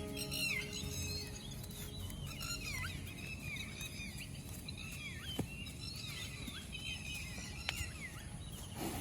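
Many small birds chirping: short, falling calls that overlap all through, over a steady low rumble.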